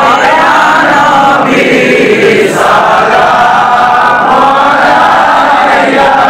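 A large group of men chanting together in unison, an Islamic devotional chant, steady and loud.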